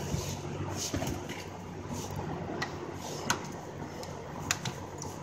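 Scattered sharp clicks and light knocks of hands and tools working among hoses and metal parts in a car's engine bay, over a low steady hum.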